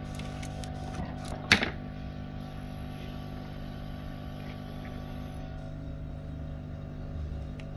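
A steady electrical hum with several held tones, and one sharp clack about a second and a half in as a tool is set down on the workbench.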